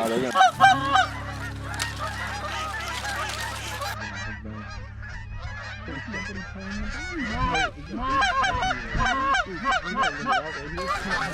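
Canada geese honking: many short, overlapping honks from a flock, thicker near the start and again in the last few seconds.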